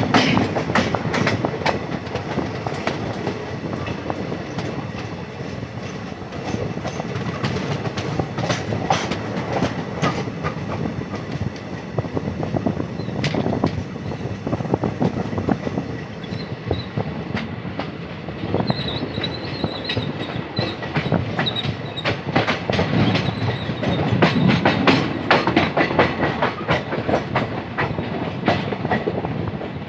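Indian Railways train running along the track: a steady rumble broken by irregular clicks and clacks of the wheels over rail joints, with a faint high whine of wheel squeal about two-thirds of the way through.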